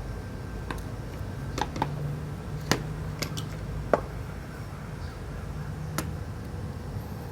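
Small tools and iPhone 6S parts clicking and tapping during reassembly: about eight sharp, irregular clicks over a low steady hum.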